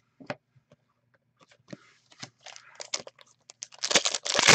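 Trading cards handled with small clicks and rustles, then a loud crinkling tear near the end as a foil card-pack wrapper is torn open.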